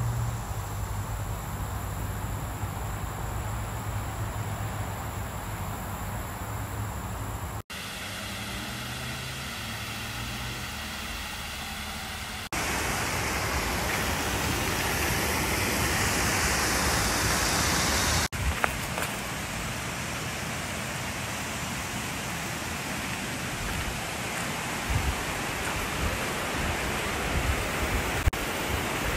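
Steady rushing of flowing river water over rocks, broken by a few abrupt cuts, with a low hum in the first part. For about six seconds in the middle the rushing is louder and hissier.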